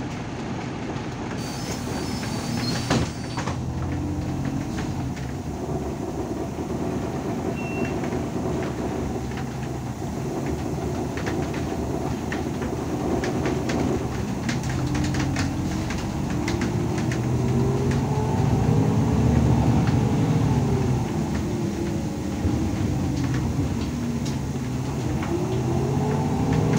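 Cabin sound of an Irisbus Citelis 12 m city bus under way: its engine runs steadily and climbs and falls in pitch several times as the bus accelerates and slows. Many short clicks and rattles come through the middle stretch.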